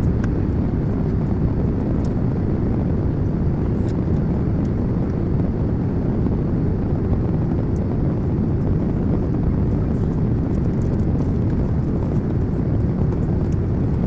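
Steady drone of a jet airliner's cabin in flight: engine and airflow noise, even and low-pitched.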